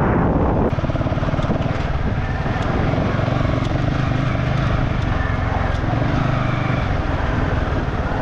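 Motorcycle engine running steadily under way, with wind and road noise.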